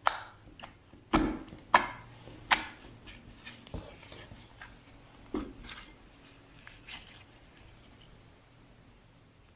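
Slime being handled, making sharp pops and clicks. Several loud ones come in the first few seconds, then smaller crackles thin out.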